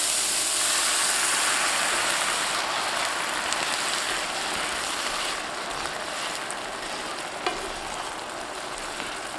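Beef stock sizzling in a hot cast-iron skillet of shallots, garlic and capers as the pan is deglazed and stirred with tongs. The sizzle is loudest at the start and dies down steadily, with a single light click near the end.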